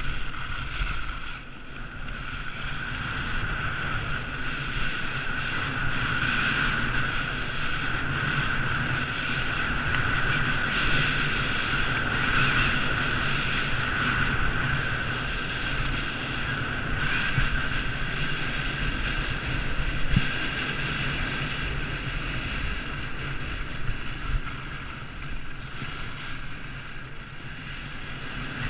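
Wind blowing across an action camera's microphone during a ski descent, mixed with the steady hiss and scrape of skis running over hard-packed snow.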